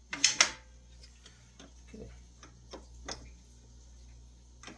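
Two sharp clicks about a quarter second apart, then a few lighter scattered clicks and taps as a clamp is handled and worked.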